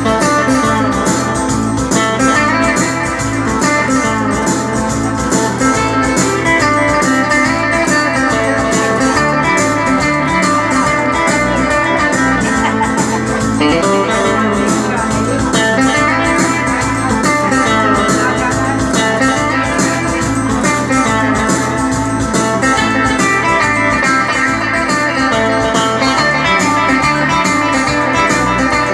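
Music played by a band, led by guitar over a steady beat.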